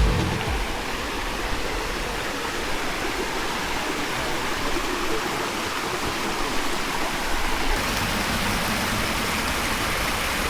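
Strong wind blowing steadily in the mountains, a full rushing hiss with slight surges and some buffeting on the microphone.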